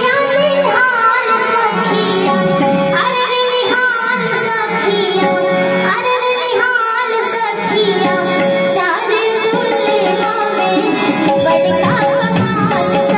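A young girl singing an Indian song through a microphone and PA system, with live harmonium and tabla accompaniment. The sung melody wavers over a steady held note and a running drum beat.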